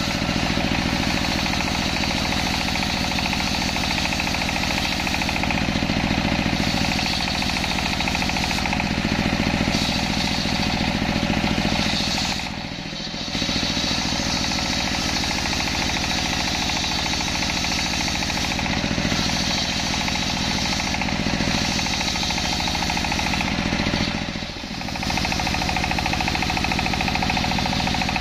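Belt-driven table circular saw ripping lengthwise through a jackfruit log, its motor running steadily under load with a dense rattling whine. The sound dips briefly twice, about halfway through and near the end.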